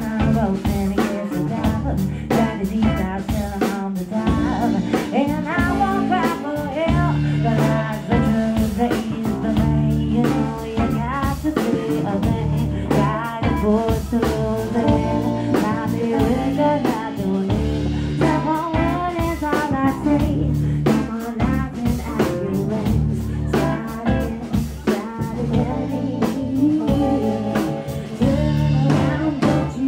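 Live band playing: electric guitar, bass guitar and drum kit, with a woman singing.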